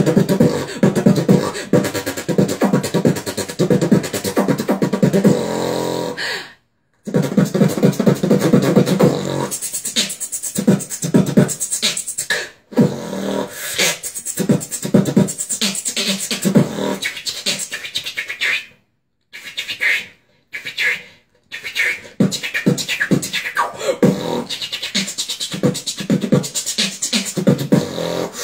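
Beatboxing: fast vocal drum patterns of kicks, snares and hi-hat clicks. A hummed bass line runs under the beat for the first six seconds or so, and the beat stops briefly several times, around 6.5, 12.5, 19, 20 and 21 seconds in.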